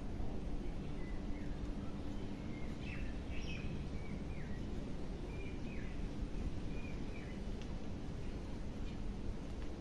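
Small birds chirping in short, falling calls over a steady low background rumble.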